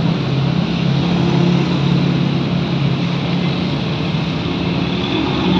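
A motor vehicle's engine running steadily: a low, even hum over a rush of noise.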